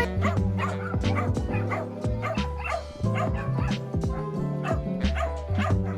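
A dog barking repeatedly, several short barks a second, over background music with a steady bass line.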